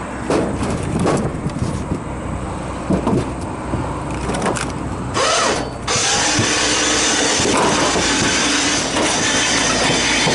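Knocks and clatter of metal parts being handled, then from about six seconds a steady, loud hiss-like running noise with a faint hum, as of the homemade compressor lift's hoist running.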